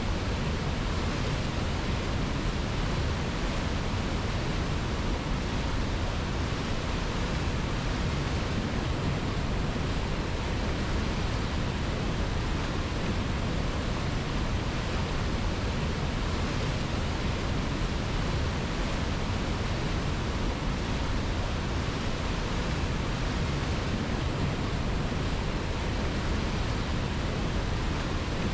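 River water rushing as a steady, unbroken hiss with no splashes or changes.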